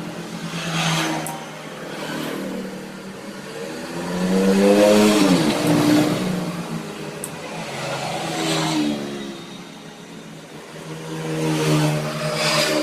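Honda Supra X 125's single-cylinder four-stroke engine running and being revved four times, its pitch rising and falling with each blip; the longest and loudest rev comes about five seconds in.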